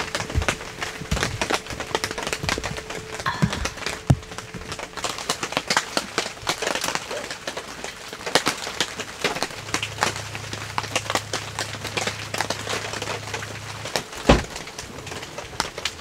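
Rain dripping onto a tent and car: a dense, irregular run of drop taps, with a few louder, heavier drips among them. A low steady hum joins for a few seconds in the second half.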